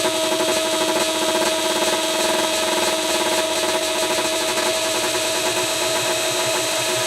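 Minimal techno track: a dense, rapidly pulsing gritty texture over a held note.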